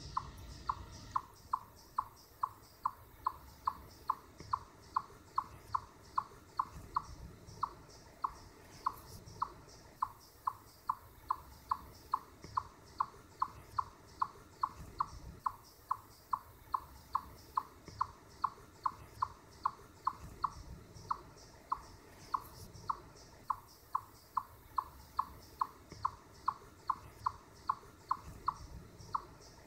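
Eastern chipmunk giving its repeated chip alarm call: a long, very even series of single sharp, high chips, about two or three a second.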